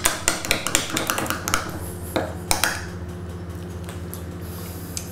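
A spoon stirring thick yogurt sauce in a ceramic bowl, clinking and scraping quickly against the bowl for about the first second and a half, then two single taps a little later.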